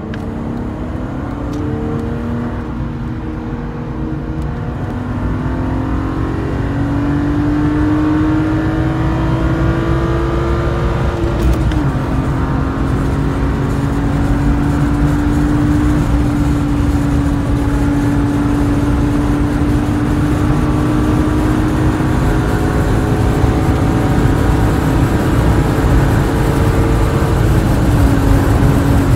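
BMW E36 328i's 2.8-litre straight-six, fitted with an M50 intake manifold and M3 headers and exhaust, pulling at full throttle, heard from inside the cabin. The engine note rises steadily through a gear, drops at an upshift about 11 seconds in, climbs again more slowly, and drops at a second upshift near the end.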